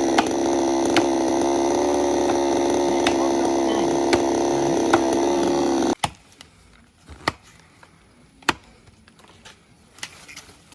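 Chainsaw running at a steady high speed, likely cutting into the tree, then stopping abruptly about six seconds in. A few faint sharp snaps or clicks follow.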